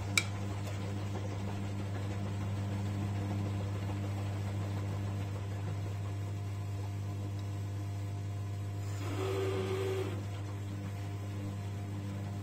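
1994 Bompani BO27027 front-loading washer dryer running a wash, its drum turning the laundry through water, over a steady low hum. A sharp click comes just after the start, and about nine seconds in the machine gets briefly louder with a steady tone for about a second.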